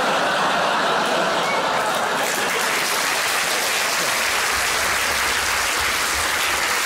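Large theatre audience applauding steadily after a punchline.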